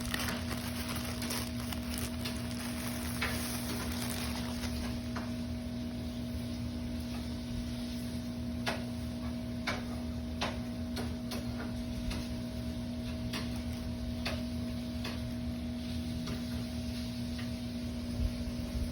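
Scattered light clicks and taps, as of a parcel and its contents being handled, over a steady electrical hum.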